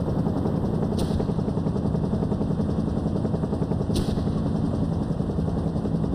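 Combat sound of a helicopter's rotor chop mixed with rapid gunfire, a dense, fast, steady pulsing. There are two sharp cracks, about a second in and about four seconds in.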